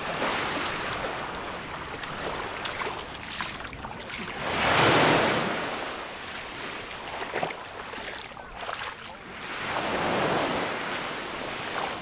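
Small waves breaking and washing up a pebbly shore, the surf swelling three times, loudest about five seconds in.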